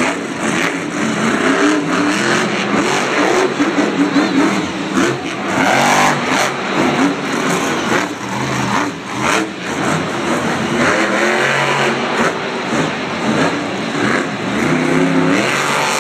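Monster truck engines revving hard again and again, the pitch climbing and dropping with each blip of the throttle. These are supercharged V8s.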